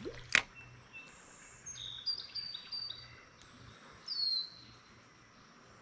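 Songbirds singing: a run of short, high whistled notes, then a single down-slurred whistle about four seconds in. A sharp click sounds just after the start.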